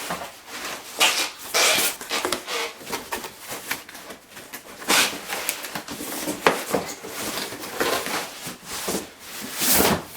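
Cardboard and packing material rustling and scraping in bursts as a boxed fence positioner is unpacked.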